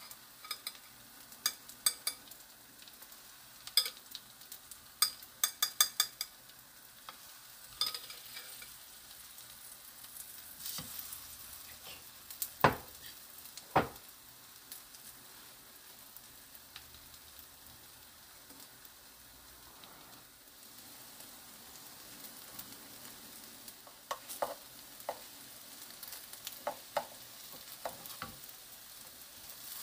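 Zucchini slices in batter frying gently in oil in a pan, a quiet steady sizzle. Over it, clusters of light clicks in the first several seconds as batter is spooned from a glass bowl, two louder knocks about 13 seconds in, and wooden spatulas clicking against the pan near the end as slices are turned.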